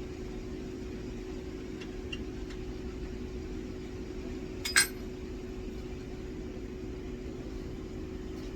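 Steady hum of background machinery with one constant tone, and a single sharp metallic clink about halfway through.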